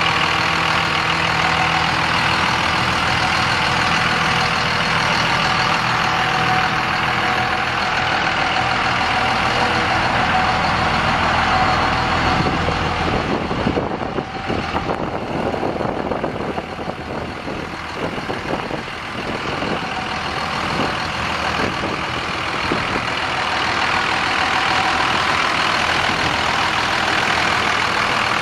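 Cummins 5.9-litre inline-six diesel engine of a 2001 Dodge Ram 2500 idling steadily. It drops slightly in level for a few seconds midway, with some uneven rustling, then settles back.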